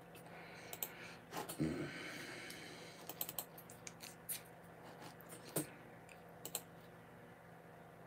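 Irregular light clicks and taps of typing, a dozen or so spread over the first seven seconds, with a softer thump about a second and a half in. A faint steady hum runs underneath.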